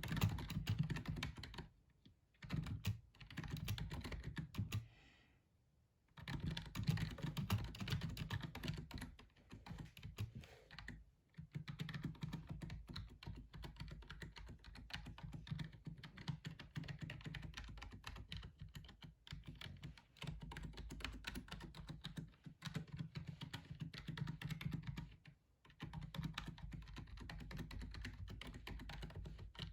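Typing on a gaming computer keyboard: fast runs of key clicks broken by a few short pauses.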